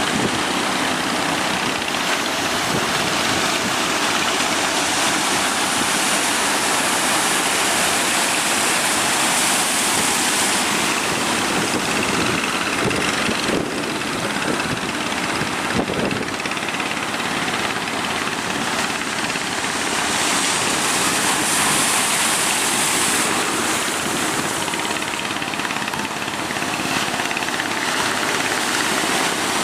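Large ocean waves breaking as a steady rush of surf, with wind buffeting the microphone; the level swells and eases slowly.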